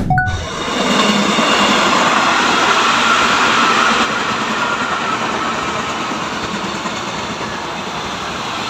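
A train passing on the rails, giving a steady loud rush of wheel and rail noise with faint high squealing tones over it.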